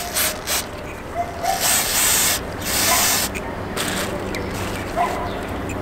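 Aerosol can of silicone spray hissing in several short bursts, coating the rubber boots of a brake caliper.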